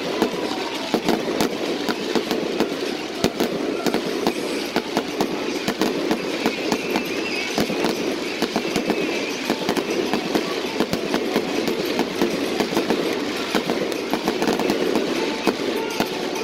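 Aerial fireworks display: shells launching and bursting in rapid succession, many sharp bangs and crackles over a continuous rumble.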